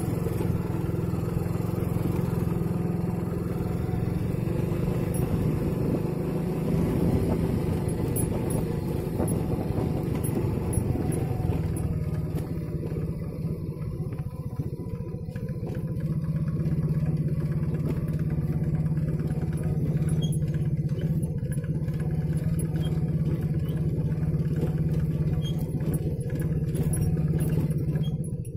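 Motorcycle engine running steadily as it is ridden along, with small shifts in engine pitch every few seconds.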